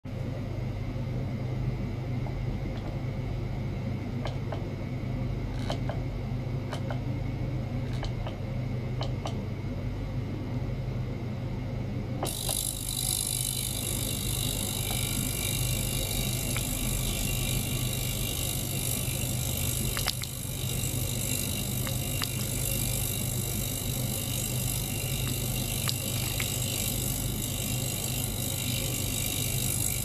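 Small ultrasonic cleaner running with a steady low buzz, with a few faint ticks in the first part. About twelve seconds in, a loud, even high hiss comes in on top and holds.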